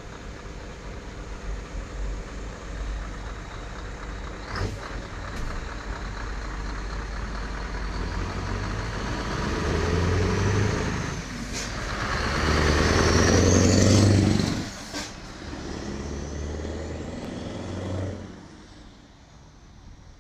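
Scania R560's V8 diesel engine pulling as the truck approaches, growing louder to its loudest point as it passes. The throttle is cut sharply about three-quarters of the way through, followed by a shorter, weaker pull that drops away near the end.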